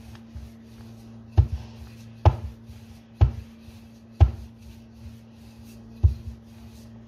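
Wooden rolling pin rolling bread dough out on a round metal pan, rubbing back and forth with a sharp knock on five of the strokes, about one a second with a longer gap before the last.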